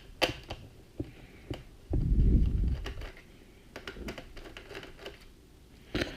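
Handling noise from a Toshiba L300 laptop being taken apart by hand: scattered light plastic clicks and taps, with about a second of loud low rumbling handling noise two seconds in.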